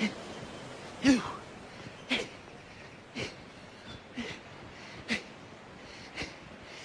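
A person giving short, breathy gasps about once a second.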